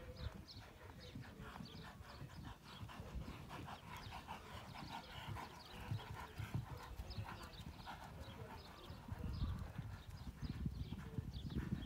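A horse's hooves thudding on a sand arena surface as it is ridden around, a run of rhythmic hoofbeats that are loudest as it passes close by about halfway through.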